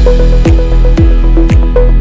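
Electronic dance music with a steady kick drum about two beats a second, sharp percussion hits and a held synth note.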